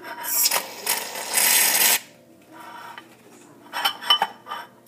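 Aerosol shaving cream can being shaken for about two seconds, a loud noisy rattle. A few short light knocks follow near the end.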